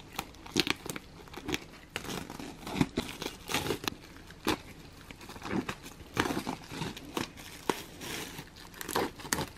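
Plastic shrink-wrap on new photo albums crinkling and crackling as hands peel it off, in irregular sharp crackles.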